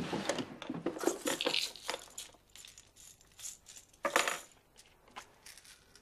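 Hands rummaging through papers and handling a small pill bottle, with quick clicks, rustles and small hard rattles. There is one louder rustle about four seconds in, then a few light clicks as the bottle is twisted open.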